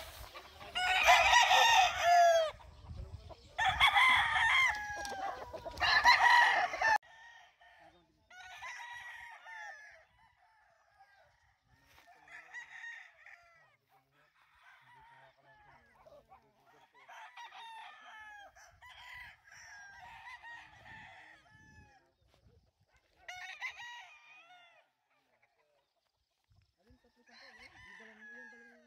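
Game fowl roosters crowing: three loud crows close by in the first seven seconds, then fainter crows from other roosters across the yard at intervals.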